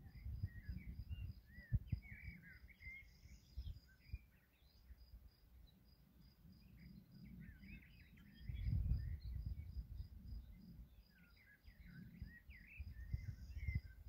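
Songbirds singing in spurts over a steady high chirp pulsing about three times a second. Low gusts of wind buffet the microphone, strongest about two-thirds of the way through.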